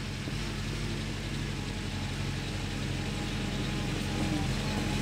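Willys MB jeep's four-cylinder Go-Devil flathead engine running steadily, a little louder from about four seconds in.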